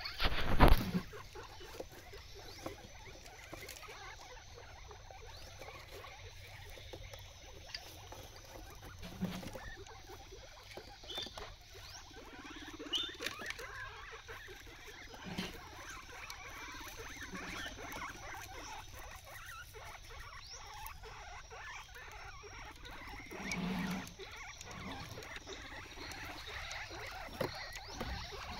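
Guinea pig chewing and nibbling fresh leafy greens, a soft, rapid crunching and rustling of leaves and stems, with a few soft thumps. A loud knock comes about half a second in.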